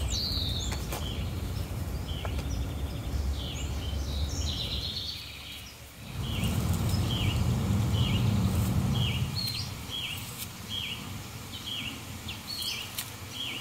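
A bird repeats a short chirping call at an even pace of somewhat more than one a second through the second half, with scattered other chirps earlier. Under it runs a low outdoor rumble that fades for a moment midway.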